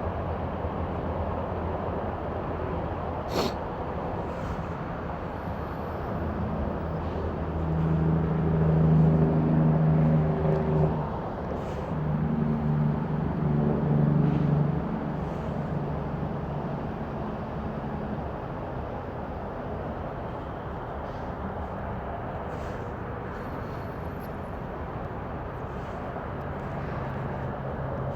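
Steady road traffic noise. A motor vehicle's engine grows louder for several seconds in the middle, in two pushes with a brief dip between, then fades back into the traffic.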